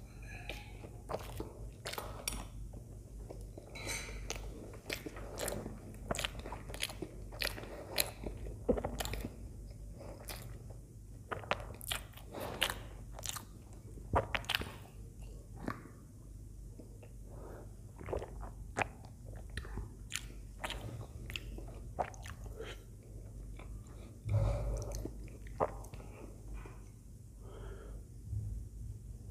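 Close-miked chewing of soft idli soaked in sambar: wet, irregular mouth clicks and smacks. One fuller low thump comes near the end.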